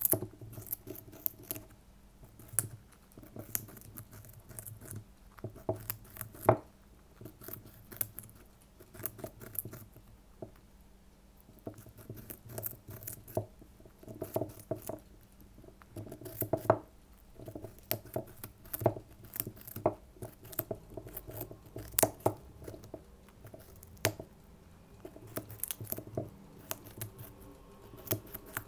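Syrian hamster gnawing and crunching a piece of raw carrot right beside the microphone: irregular runs of sharp, crisp crunches, several a second, broken by short pauses.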